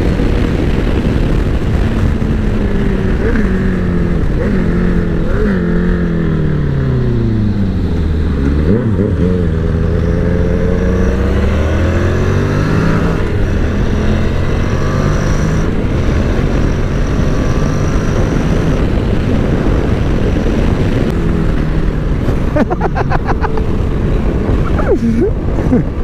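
Wind rushing over the microphone on a moving Honda NC750X motorcycle, with the bike's parallel-twin engine droning underneath. The engine note falls over several seconds as the bike slows, then levels off.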